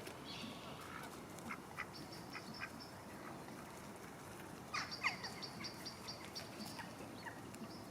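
Faint calls of waterfowl: a few short notes, with two falling calls about five seconds in. A small bird's run of quick, high, evenly repeated notes comes in twice.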